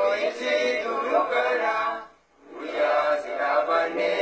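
A group of voices singing a faaruu, an Oromo praise song, in sustained chant-like lines. The singing drops out for about half a second past the middle, then comes back.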